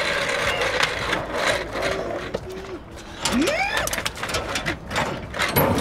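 Office chair casters rolling over asphalt, a steady noise that fades out about three seconds in, with a short rising voice cry. Then a few knocks and clunks, as of a shipping container's door latch being handled.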